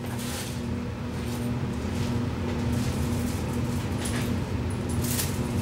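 Steady low mechanical hum, like a motor or fan running, with a few short soft rustling noises.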